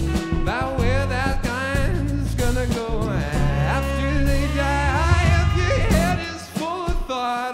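A funk band playing live: electric guitar, bass and drum kit under a singing voice. The low bass line drops out about six and a half seconds in.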